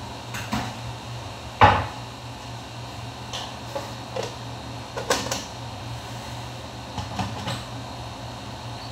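Plastic blender jar being handled and fitted onto its motor base: a series of plastic knocks and clicks, the loudest a sharp knock just under two seconds in.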